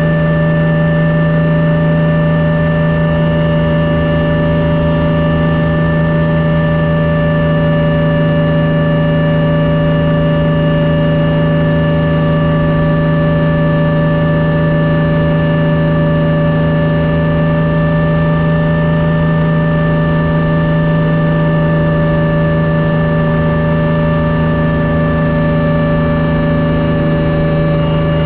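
Hummingbird helicopter's engine and rotor running steadily, heard from inside the cabin: a loud, even drone with a strong low hum and a set of steady higher tones over a low rumble.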